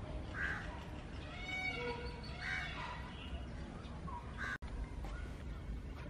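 A bird calling repeatedly, short calls coming about every one to two seconds over a steady background hum.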